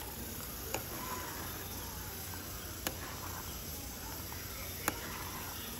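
Curd curry simmering in a kadhai on a gas stove as a ladle stirs it: a steady hiss with three sharp ticks about two seconds apart.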